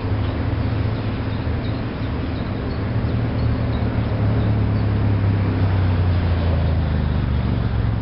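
Steady low mechanical hum with a noise wash over it, like engines or plant machinery running continuously, growing slightly louder partway through.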